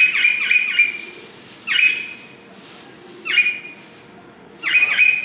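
Pet parrots screeching: four loud, harsh calls about every one and a half seconds, the first longer and broken into several quick notes.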